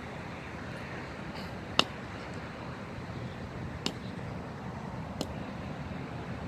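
Three short, sharp knocks, the first the loudest, from a crab-eating macaque handling a husked coconut on stone paving, over a steady low background rumble.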